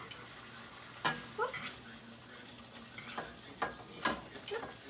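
Utensil clinking and scraping against a frying pan while cooked beef slices are lifted out, over hot oil sizzling steadily. Sharp clinks come about a second in, with a short squeak of scraping, and several more near the end.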